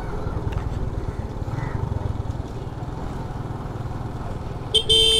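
TVS Star City Plus's small single-cylinder four-stroke engine running steadily at low road speed, heard from the rider's seat. A short horn beep sounds near the end.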